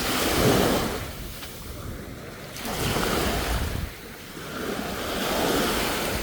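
Ocean surf washing up the beach in three swells that rise and fall, with wind on the microphone.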